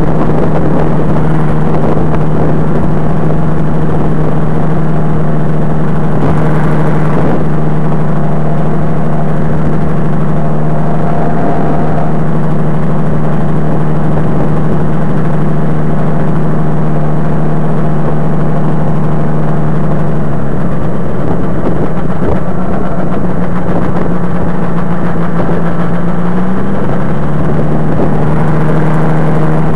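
Rotax 503 two-cylinder two-stroke engine of a Sabre ultralight trike running steadily at low power while the trike taxis. Its note shifts in pitch about two-thirds of the way through, then settles back near the end.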